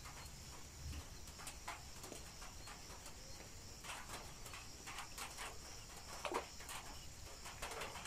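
Quiet outdoor ambience: a steady high-pitched insect chirring with several short bird calls, the loudest a falling call about six seconds in.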